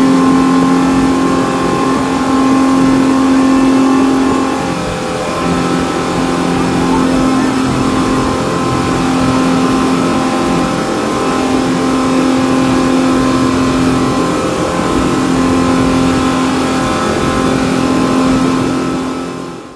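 Twin Yamaha outboard motors on a speedboat running hard at speed, a steady engine drone over the rush of water and wind. The engine note dips briefly about five seconds in.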